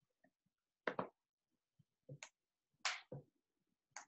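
Pages of a large picture book being fumbled and turned: four brief paper rustles and taps, about a second apart.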